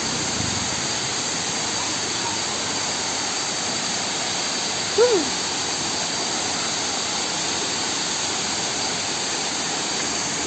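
Waterfall rushing steadily, a continuous even noise. A short rising-and-falling voice-like sound cuts in once, about halfway through.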